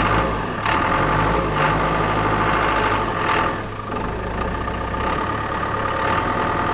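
Cat 420F backhoe's diesel engine idling steadily just after a hard cold start, with a steady high whine over the engine note.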